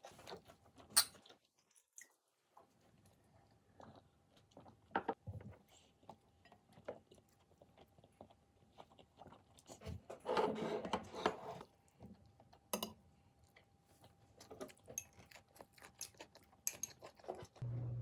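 A person eating: quiet chewing with scattered small clicks and taps, and a louder stretch of crunchy noise about ten seconds in.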